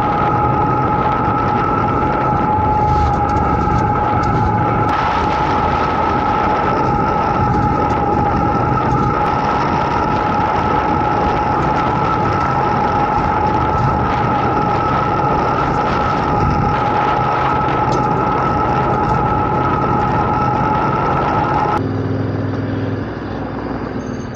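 Yamaha Ténéré 700 parallel-twin engine running at riding speed on a gravel track, mixed with wind and tyre noise and a steady two-note whistle. About 22 s in the whistle stops abruptly and the sound grows quieter.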